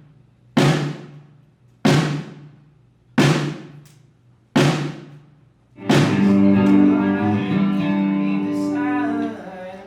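Drum sound check: a single drum struck four times, evenly about a second and a quarter apart, each hit ringing out before the next. About six seconds in, a held chord comes in and sustains for a few seconds before fading near the end.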